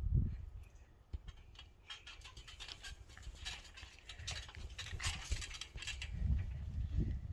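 Light patter of footsteps and rustling as people creep and shuffle around, with a run of small clicks in the middle and low thuds near the start and the end.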